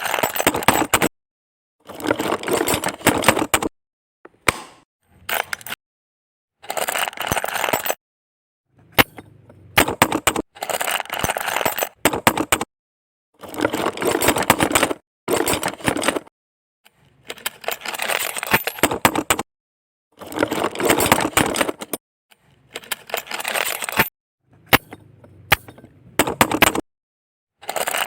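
Small plastic building bricks clattering and clicking together, in a string of separate bursts a second or two long with dead silence between them.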